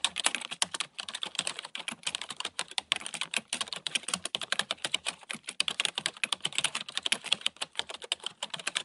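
Typing sound effect: a rapid, uneven run of keyboard key clicks that goes along with text being typed out on screen, stopping just after the end.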